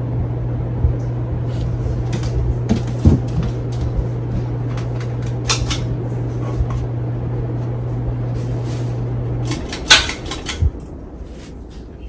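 Hunter 2nd Century Original ceiling fan motor running with a steady low hum and a few sharp clicks. The hum cuts off about nine and a half seconds in, and a louder click follows just after.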